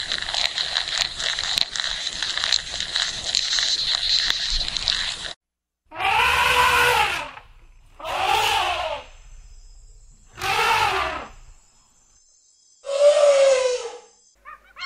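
Dense crackling with a steady high hiss for about five seconds. After a brief silence, African elephants trumpet four times, each call a loud blast that rises and then falls in pitch.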